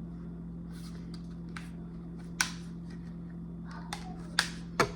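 Handling noises from a new camera and its packaging: scattered small clicks and rustles, a few sharper clicks near the middle and end, over a steady low hum.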